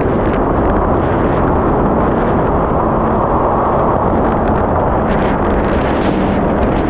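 Yamaha GP1800R SVHO jet ski under way, its supercharged four-stroke engine running steadily at cruising speed, mixed with a steady rush of wind on the microphone and water.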